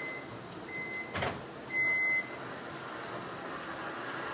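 Microwave oven beeping at the end of its cooking cycle: three short, high, even beeps about a second apart, the last one louder, with a single click about a second in.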